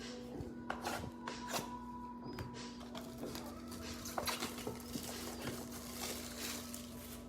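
A trading-card blaster box being opened and its packs handled: scattered small crackles, taps and rustles of cardboard and plastic wrapping. A steady low hum runs underneath.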